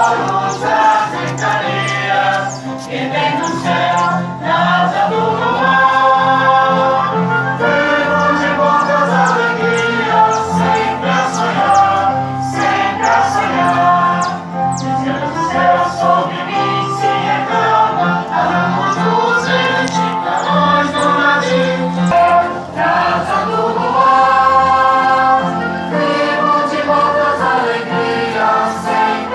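Music: a choir singing long held notes over instrumental backing, with no clear words.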